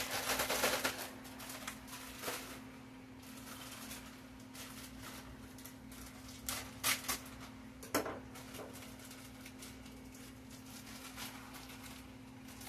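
Plastic bag of broccoli crinkling as it is torn open in the first second, then scattered light clicks and knocks of handling at a kitchen sink, over a steady low hum.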